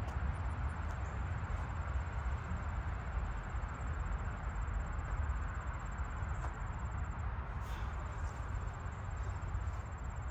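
Steady low rumble with a hiss, the background noise of an outdoor open space, with a faint, thin, high insect trill running through it that stops briefly about seven seconds in.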